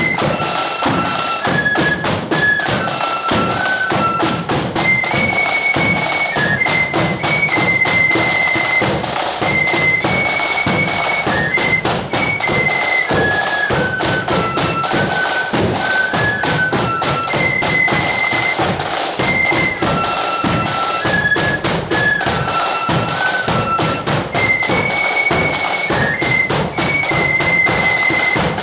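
Blood-and-thunder flute band playing a march: a shrill unison melody on flutes over steady snare and bass drumming.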